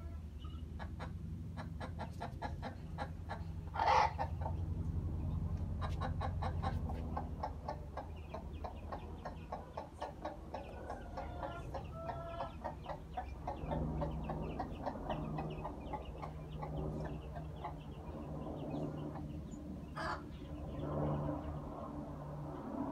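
Mother hen clucking steadily to her chicks, with small calls from the brood mixed in and a louder call about four seconds in and again near the end. A steady low hum runs underneath.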